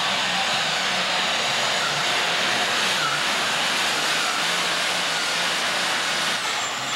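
Super Stock Allis-Chalmers pulling tractor's turbocharged diesel running flat out under full load as it drags the weight-transfer sled, a loud, steady roar.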